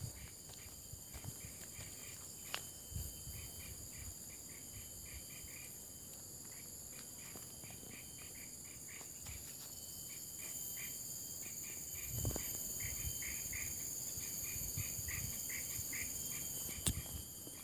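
Steady high-pitched insect drone with runs of quick, evenly repeated chirps, and scattered soft footstep thumps on a dry path. The drone grows louder about ten seconds in.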